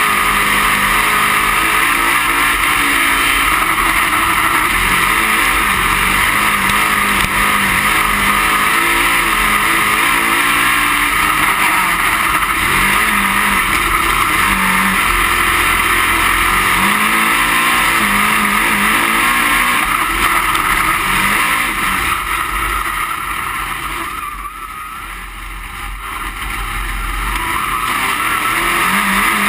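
A dirt-track race car's engine under racing load, heard from inside the cockpit, its note rising and falling through the corners under a heavy rush of wind and road noise. Near the end it quietens for a couple of seconds, then builds back up.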